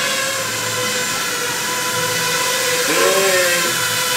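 5-inch FPV racing quadcopter's four brushless motors and propellers whining steadily in flight, with a brief swoop in pitch about three seconds in.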